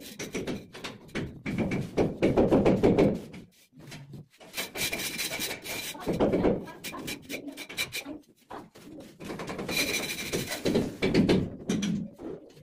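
Hand tools scraping and rasping against sand-and-cement plaster on a ceiling as a ceiling flower is carved, in three bursts of quick strokes.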